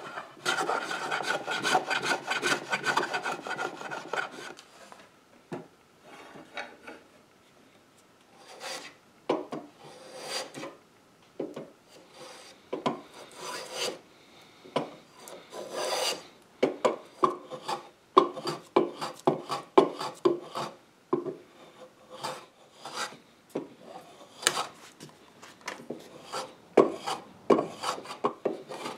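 A wood rasp scraping back and forth over a wooden repair patch for about four seconds. After a short pause come many short strokes of a small hand plane shaving the patch down, more frequent in the second half.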